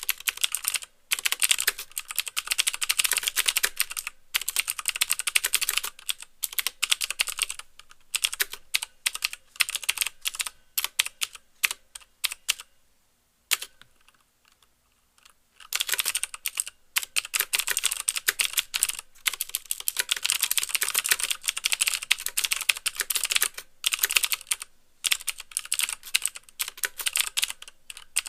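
Fast typing on a mechanical keyboard with clicky Cherry MX Blue switches: a quick stream of key clicks with the clack of keys bottoming out. The typing stops for about three seconds around the middle, then resumes.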